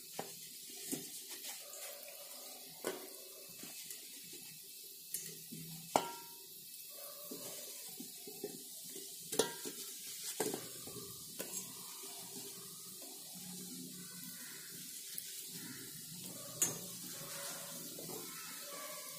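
Fried gulab jamuns being dropped into sugar syrup in a metal pot: scattered light knocks and clinks against the pot and small plops in the syrup, with a sharper knock about 6 s in and again near 16.5 s.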